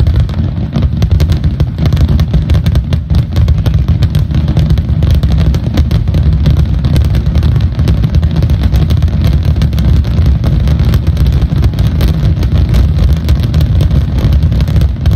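A dense barrage of aerial fireworks shells bursting in rapid succession. The booms and crackle merge into one loud, continuous rumble with no gaps.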